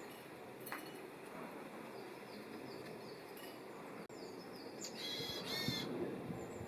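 Small wild songbirds calling: many short, thin high chirps, with a louder two-part call about five seconds in, over a steady low background rumble.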